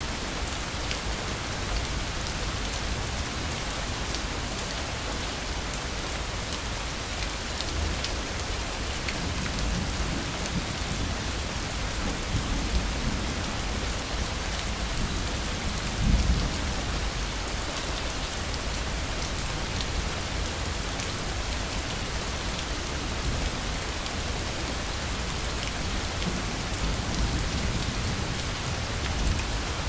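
Steady rain, a constant hiss with many scattered drop ticks over a low rumble, which swells briefly about halfway through.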